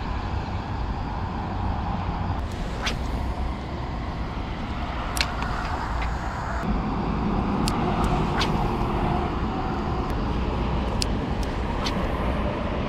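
Steady outdoor rumble of wind and road traffic, with a few sharp ticks scattered through it.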